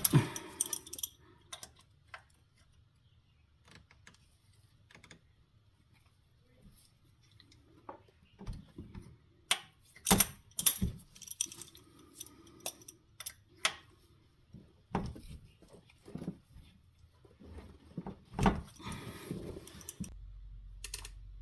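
Metal-on-metal clicks and clinks of a hand wrench working the new oil pressure switch tight a little at a time, in scattered knocks with quiet pauses between.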